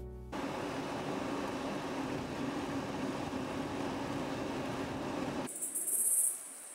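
Steady road and engine noise heard from inside a moving car. About five and a half seconds in it cuts to outdoors, where insects keep up a high-pitched, steady drone that is loudest at first.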